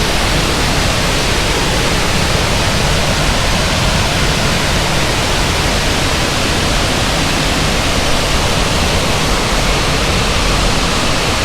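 Waterfall rushing: a loud, steady roar of falling water with no change throughout.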